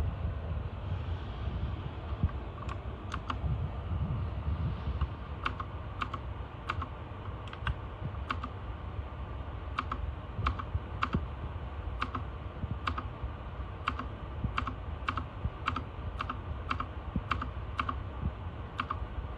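Keys of a Royal Kludge RK61 mechanical keyboard being pressed one at a time: single sharp clicks at a slow, uneven pace of about one or two a second, starting a couple of seconds in, over a steady low hum.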